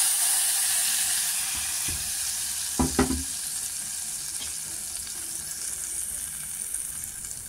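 Hot tadka (spiced tempering oil) poured into a pot of potato kadhi, sizzling loudly at first and slowly dying down. Two sharp knocks sound about three seconds in.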